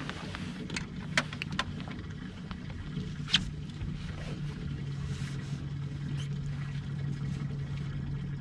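Boat motor running with a steady low hum. Several sharp clicks and knocks sound over it, the loudest about three and a half seconds in.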